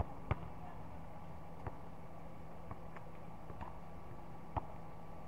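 A basketball bouncing on a hard court: five short, sharp thuds at irregular spacing over a steady background hum.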